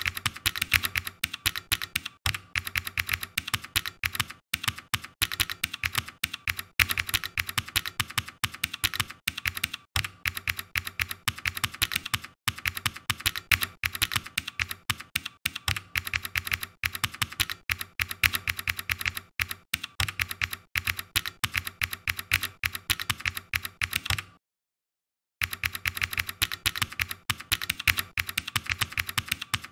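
Typing on a computer keyboard: a fast, uneven run of key clicks, several a second, with short pauses between bursts. It breaks off into total silence for about a second near the end, then resumes.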